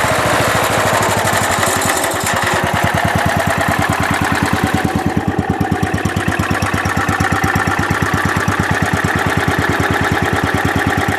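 The 10-horsepower cast-iron Kohler single-cylinder engine of a Wheel Horse C101 lawn tractor running steadily, its firing strokes coming as a fast, even pulse.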